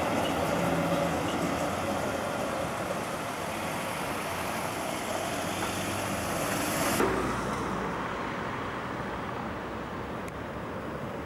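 Street traffic: an articulated tram rolling away over the rails and cars driving past. About seven seconds in the sound cuts abruptly to a quieter, duller street hum.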